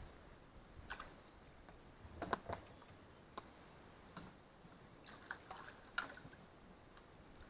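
Faint, scattered small splashes and drips at the water's surface, a few seconds apart, as a hooked giant freshwater prawn is drawn to the side of the boat and flicks in the water.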